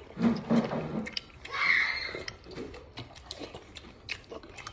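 A man eating noodle soup: chewing, with light clicks of chopsticks and bowl. A short murmur comes near the start, and a brief hiss about two seconds in.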